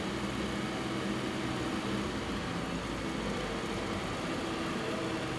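Electric treadmill running steadily at a raised speed: an even motor hum made of several steady tones, with the belt running underneath.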